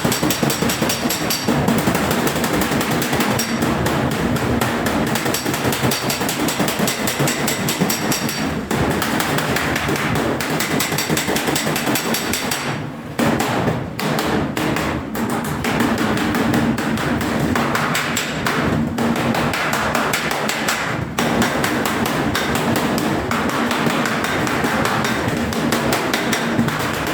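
Hammer striking sheet steel in quick repeated blows.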